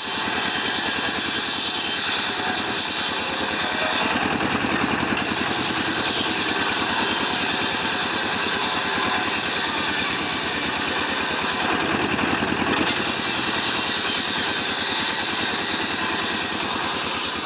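Single-cylinder stationary diesel engine running steadily with a fast, even beat, belt-driving a circular saw blade that rips a mahogany plank with a high, hissing cut. The hiss thins out briefly twice, around four seconds in and again around twelve seconds in.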